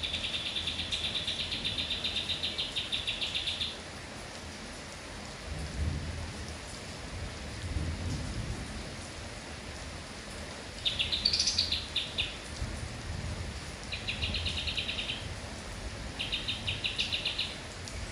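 A kapas tembak songbird singing rapid chattering trills: one long phrase at the start, then three shorter bursts in the second half. Underneath, a steady hiss of rain and a couple of low rumbles of thunder around the middle.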